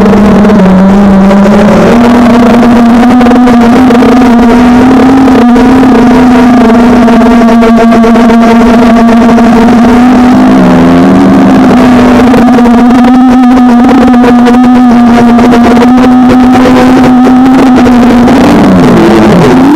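FPV quadcopter's motors and propellers whining at a steady pitch, loud, with small shifts in pitch as the throttle changes and a wavering dip near the end.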